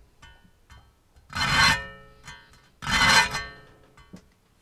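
A fine flat file is pushed across the teeth of a Silky saw blade, sharpening them, in two loud rasping strokes about a second and a half apart. Each stroke carries a ringing metallic tone from the blade. A few light ticks of the file on the teeth come before the strokes.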